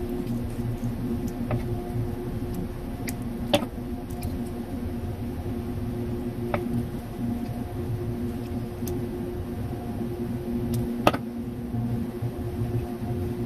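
Steady machine hum with a few constant tones throughout, overlaid by small clicks from handling a plastic battery holder and its wires, the sharpest about three and a half seconds in and again about eleven seconds in.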